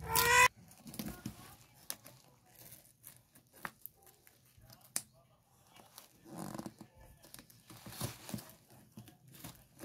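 Scissors snipping and tearing through packing tape on a cardboard box, with scattered clicks, scrapes and rustles of the cardboard flaps being pulled open. A short rising cry, the loudest sound, comes in the first half second.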